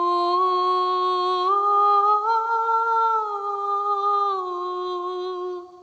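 A woman's voice sings a slow wordless melody in an old silo: long held notes that step up in pitch, then come back down before stopping near the end, with the silo's reverb ringing on them.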